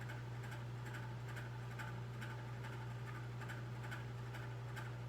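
Room tone in a pause: a steady low hum with faint light ticks repeating every fraction of a second.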